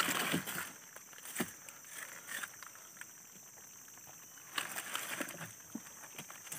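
Faint rustling and scattered sharp clicks of hands sorting giant freshwater prawns out of a netting trap and wet leaf debris in the bottom of a small boat. There is a soft rustle at the start, one louder click about a second and a half in, and a few more rustles and clicks about five seconds in.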